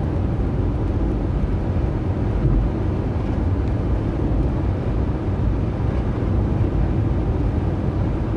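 Steady in-cabin road and engine noise of a Toyota Tercel cruising on a highway, a constant low rumble.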